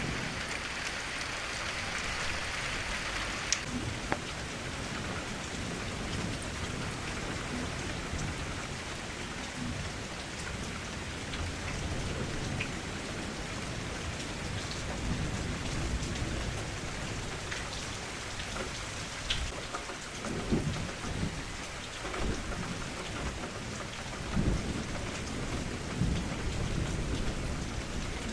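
Thunderstorm: steady rain falling, with low rolls of thunder rumbling. The thunder swells more strongly in the second half.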